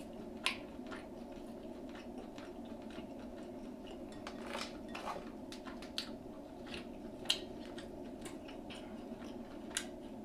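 Close-miked eating: chewing and biting into food, with scattered sharp clicks and crunches. The sharpest come about half a second in, around six and seven seconds, and near the end. Underneath is a steady low hum.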